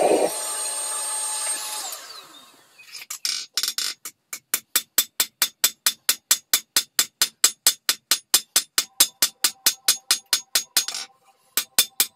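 Hand hammer striking a red-hot steel plate on an anvil in fast, even blows about four a second, with a brief pause near the end. Before the hammering, a machine's steady running noise winds down and stops in the first two seconds.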